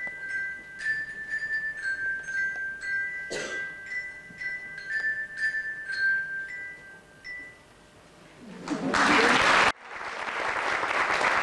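Children's glockenspiels struck with mallets, playing a slow, simple tune of single high ringing notes, about two a second. The tune ends about seven seconds in, and after a short pause the audience applauds loudly.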